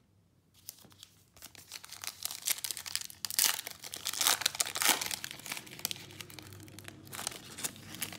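Plastic foil wrapper of a Panini Prizm basketball retail card pack being torn open and crinkled, loudest in a spell of tearing about three to five seconds in, then lighter crinkling as the cards come out.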